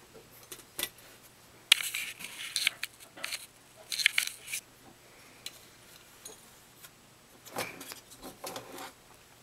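Scale-model truck parts being handled and set down on a wooden table: irregular light clicks, taps and rattles in short clusters.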